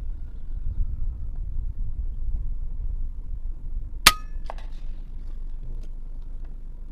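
A single rifle shot about four seconds in, a sharp crack with a brief metallic ring, followed by a fainter knock about half a second later, over a steady low rumble.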